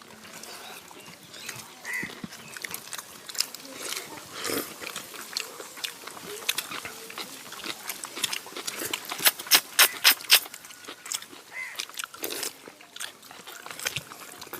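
People eating biryani by hand, with wet lip-smacking and chewing clicks, and a quick run of loud smacks about nine seconds in.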